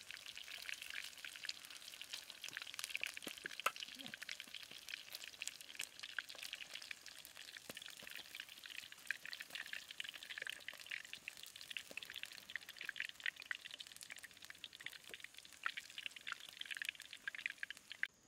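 Chicken legs deep-frying in hot oil in a wok, a steady sizzle dense with small crackling pops. It stops abruptly near the end.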